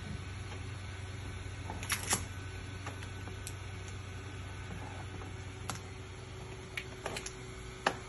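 Scattered light clicks and knocks over a steady low hum: handling noise as a refrigerator is moved through a doorway on lifting straps. There is a pair of knocks about two seconds in and a cluster near the end.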